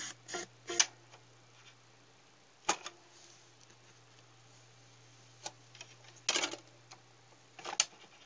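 Sharp plastic clicks from a Roadstar RCR 4516 CD/cassette boombox as its buttons are pressed and its CD lid is opened, a few taps in the middle, and a loud snap near the end as the lid is pressed shut. A faint steady hum sits beneath.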